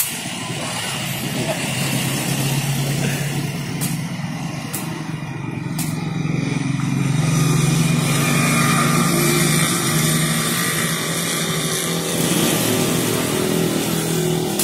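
Street traffic: motorcycle and tricycle engines running and passing, loudest about halfway through, with a few short clicks a little before that.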